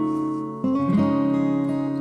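Background music: a bright acoustic-guitar tune with strummed chords that change about half a second and a second in.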